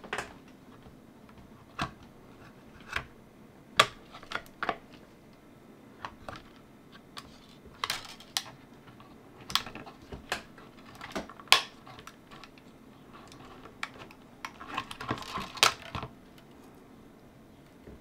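Scattered light clicks and taps of plastic being handled: filament in its Teflon sleeve being worked into the cutting slot of a filament splicer, with a quicker run of clicks near the end.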